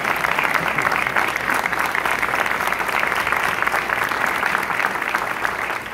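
Audience applauding: dense, steady clapping from many people in a hall.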